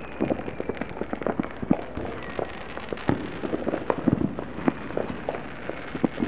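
Many distant backyard fireworks and firecrackers going off across a town below: a dense, irregular crackle of pops and bangs, several a second, echoing off a ridge.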